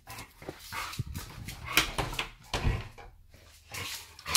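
A dog and a person moving about on a tiled floor: scattered short scuffs and knocks, with a louder knock at the very end.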